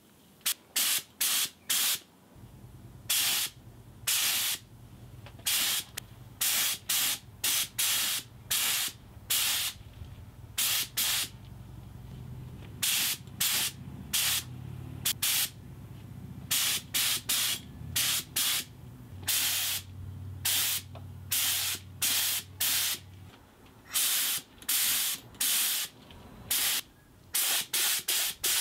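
Gravity-feed air spray gun spraying Cerakote in short, rapid bursts of hissing air, many quick trigger pulls in a row. A low steady hum runs underneath for most of it.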